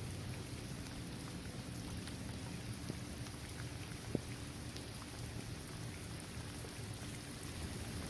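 Steady rain falling on a hard outdoor basketball court and on trees and grass, with scattered single drops ticking, one sharper than the rest about four seconds in.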